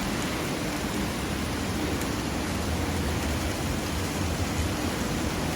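Steady hiss of heavy rain and strong wind in a thunderstorm.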